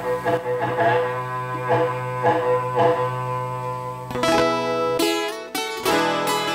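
Instrumental introduction of a sertanejo song on plucked steel-string viola caipira and guitar over a held low note. A little past four seconds in, the playing changes to brisk, sharply struck strummed chords.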